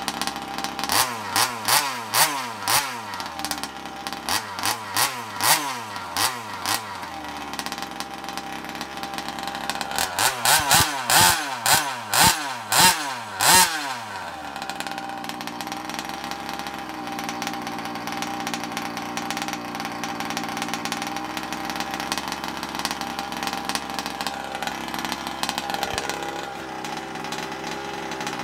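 Rovan Q-Shorty's small two-stroke petrol engine revved in three runs of quick throttle blips in the first half, then running at a steady idle. The idle is being turned down from its high factory tickover setting.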